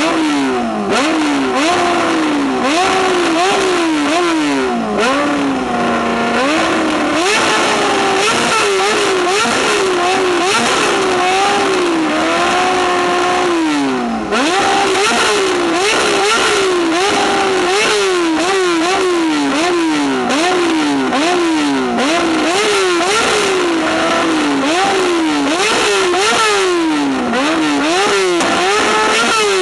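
Yamaha R6 inline-four engine being revved while the bike stands still, the revs climbing sharply and falling back about once a second, with a few longer pulls that sag slowly back down.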